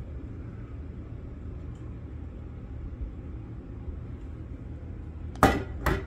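Low steady hum, then near the end two sharp knocks, the first the louder, as the glass-fronted lacquered display case of a cork carving is handled and bumped.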